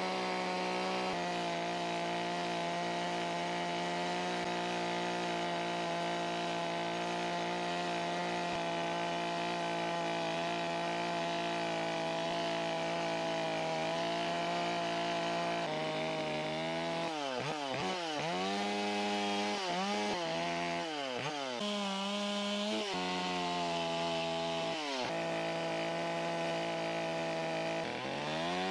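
Carving chainsaw held at high revs, cutting into wood. Past the middle its pitch dips and climbs back several times as the revs drop and pick up again, and once more near the end.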